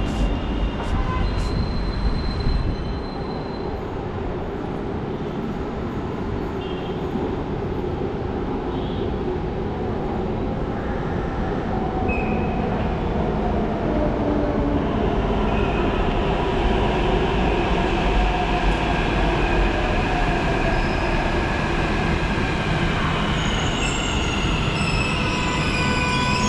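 Hyderabad Metro train at an elevated station, a steady rumble with a metallic whine and wheel squeal that build through the second half.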